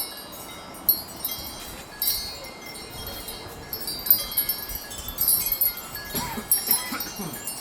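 Wind chimes ringing almost without pause as strong gusts swing them, a quick, irregular jangle of high metal tones.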